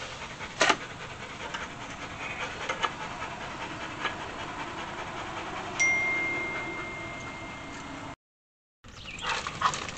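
Yellow Labrador retriever panting close to the microphone, with a sharp click about half a second in and a few lighter clicks as metal parts are handled. A thin, steady high tone starts with a click near six seconds and holds for about two seconds, then the sound drops out abruptly.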